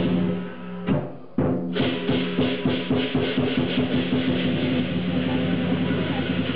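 Lion dance percussion: a Chinese drum beaten fast with clashing cymbals and a ringing gong. It dips briefly about a second in, then picks up again as continuous, fast beating.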